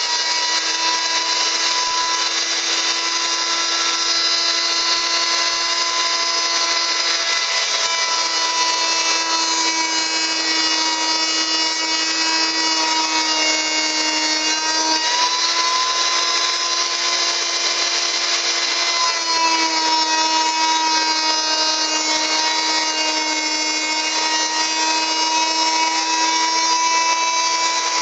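Oscillating multi-tool (vibrating back-and-forth saw) cutting through 3/4-inch PVC pipe: a steady, high buzzing whine, its pitch shifting slightly now and then as the blade works through the plastic.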